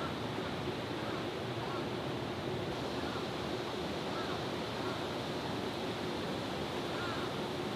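Steady rushing outdoor background noise with a faint low hum and a few faint, short high chirps scattered through it.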